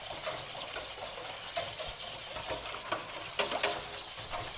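Wire balloon whisk stirring salt into cold water in a stainless steel pan to dissolve it for a brine: steady swishing and sloshing, with light clinks of the wires against the metal and a few louder ones about three and a half seconds in.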